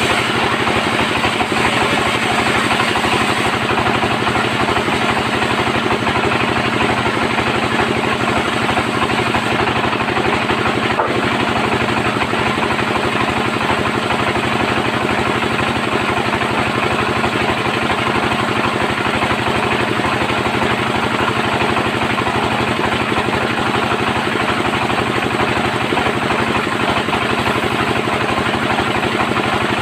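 Sawmill bandsaw running at a steady, loud drone throughout, the drive and blade noise unchanging.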